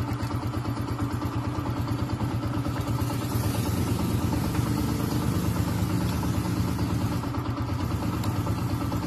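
Motorcycle engine idling steadily with a fast, even pulse; for a few seconds in the middle a hiss rises over it.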